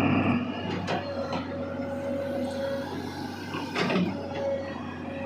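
Steady mechanical hum of a running machine, with a few sharp clicks and a louder knock about four seconds in.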